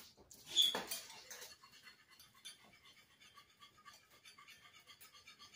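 A kitchen utensil stirring fast in a pan or bowl, a quick, even scratching. A louder clatter comes about half a second in.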